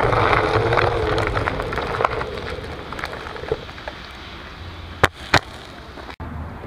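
Onewheel electric board rolling over gritty paving stones: the hub motor whines over a rough rumble of tyre and grit, growing quieter as the board slows. About five seconds in come two sharp knocks.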